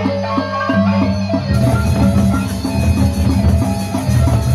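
Sasak gendang beleq gamelan ensemble playing: quick, even strokes on bronze kettle gongs, about four a second, over a sustained low gong hum. About a second and a half in, the big barrel drums take over with heavier, denser beats.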